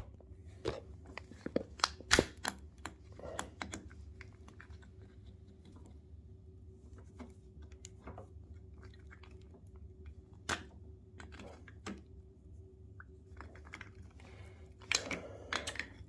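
Scattered light clicks and knocks of small plastic hose fittings being handled and pushed together, over a steady low hum. The sharpest knocks come about two seconds in and again about ten seconds in.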